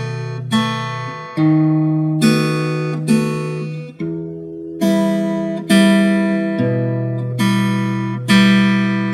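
Acoustic guitar strumming chords at a slow, even pace, a little more than one strum a second, each chord left to ring out. The chord changes every few strums.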